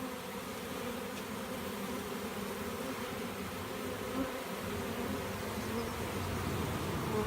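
Many honeybees buzzing steadily from a colony that is being smoked out of a water meter and marched into a hive box.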